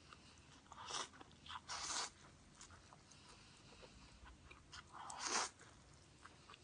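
Close-miked eating: three louder mouthfuls about one, two and five seconds in, with faint chewing and mouth clicks between them.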